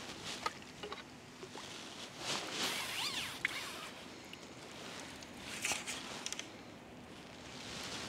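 Quiet scattered clicks and rustles of fishing tackle being handled: a landing net and a pole being moved about at the water's edge, with a louder rustling spell a couple of seconds in and a few sharp clicks later on.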